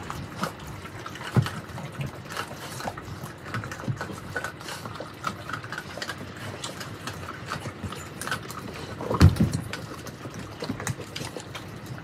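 Mastiffs chewing raw turkey, bones and all: wet smacking and crunching with many small irregular clicks, and one louder thump about nine seconds in.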